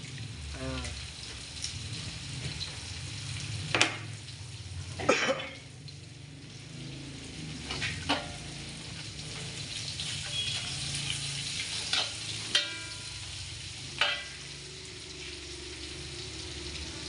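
Dried anchovies, shallots and garlic sizzling in oil in a wok, stirred with a metal spatula that scrapes and knocks against the pan about six times, loudest about four and five seconds in.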